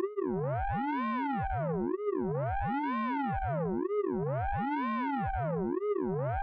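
Synthesized radar pulse-train sound effect from the Orange Vocoder plugin: a steady loop of electronic tones sweeping up and down in pitch, repeating about once a second.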